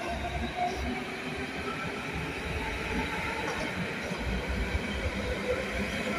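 Berlin S-Bahn electric train running past along the platform: a steady rumble of wheels on rails with a faint whine above it.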